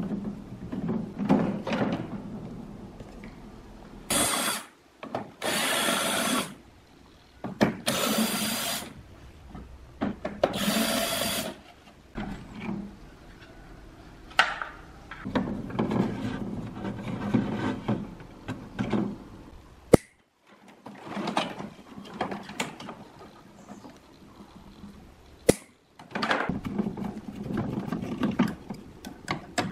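A screwdriver working screws out of a fan's plastic housing, with the plastic parts being handled: irregular clicks, knocks and rattles. There are several harsh scraping bursts of about a second each in the first dozen seconds, and the sound cuts out abruptly a few times.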